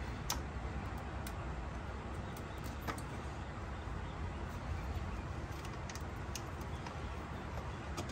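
A few light, isolated clicks and taps of parts and hand tools being handled on the engine's top end, over a steady low background hum.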